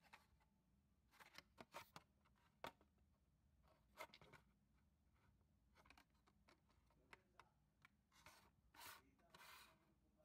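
Faint handling noise of a diecast toy car's cardboard blister card and clear plastic blister: scattered clicks and taps with short rubbing and crinkling sounds, the longest few near the end.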